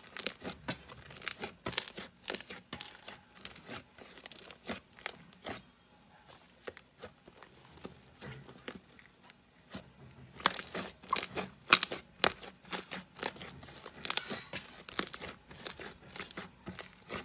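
Hand squeezing and kneading thick slime: quick runs of crackling, popping clicks as trapped air pockets burst. The clicks thin out to a faint crackle for a few seconds in the middle, then come back dense.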